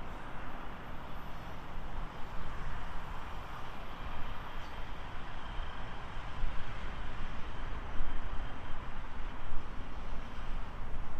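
Steady rumbling vehicle noise with a rushing roar whose loudness rises and dips.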